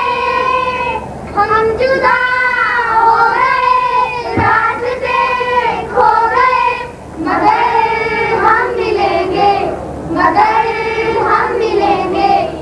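A group of children singing together, in sung phrases a few seconds long with short breaks between them.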